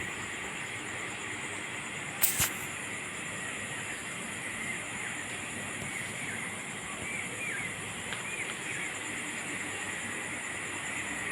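Steady background noise with a constant high-pitched drone, one sharp knock about two seconds in, and a few faint short chirps around the middle.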